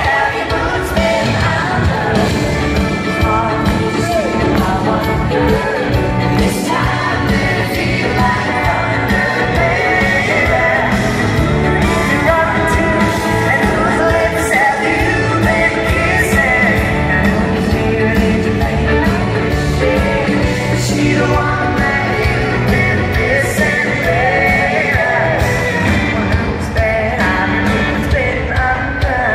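Live country-pop rock band playing in an arena, with a woman singing lead over electric guitar and a steady drum beat.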